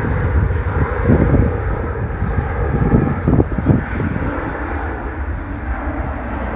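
Jet airliner's engines making a steady rumbling noise, easing off slightly over the last few seconds.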